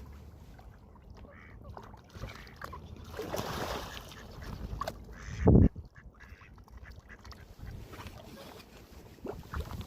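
A duck eating fast, its bill making a run of quick small clicks and dabbling sounds. A short, loud, low thump comes about five and a half seconds in.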